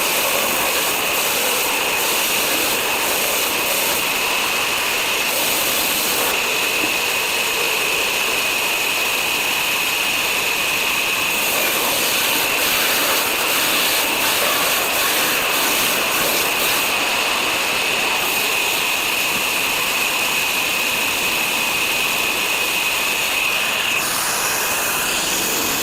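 Woodcutting saw machine running steadily with a loud, continuous high whine over a rushing noise; the whine drops away near the end.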